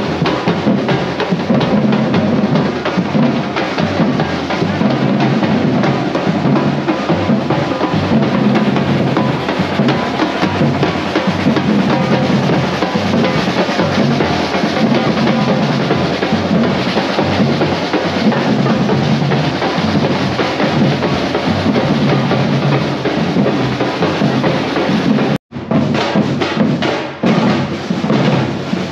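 Drum-heavy music, with bass drum, snare and other percussion playing steadily. It breaks off for an instant about 25 seconds in.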